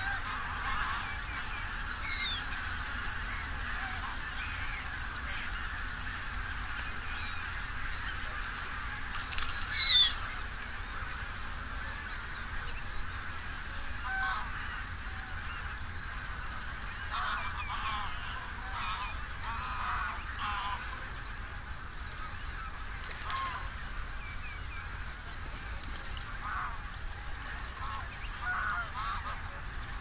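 A large flock of geese calling, with many overlapping honks blending into a steady chorus. Single louder calls stand out now and then, the loudest about ten seconds in.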